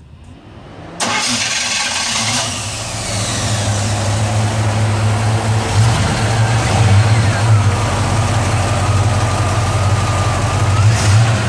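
The Chevrolet V8 in a 1955 Chevrolet pickup starting, catching suddenly about a second in, then idling steadily.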